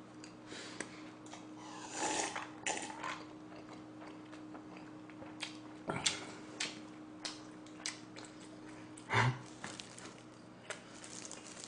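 Quiet mouth sounds of eating and drinking close to the microphone: swallowing after a drink, a breathy exhale about two seconds in, and scattered small lip smacks and clicks, with a couple of short louder mouth sounds near six and nine seconds. A faint steady low hum sits underneath.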